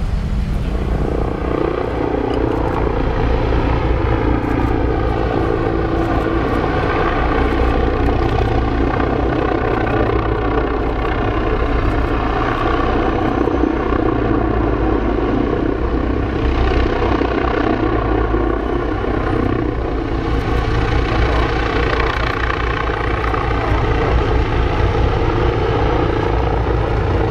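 Attack helicopter flying a display pass, its rotor and turbine engines running in a steady, continuous drone.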